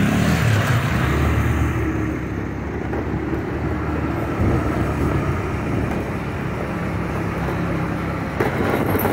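Vehicle moving slowly along a street: a steady low engine and road rumble.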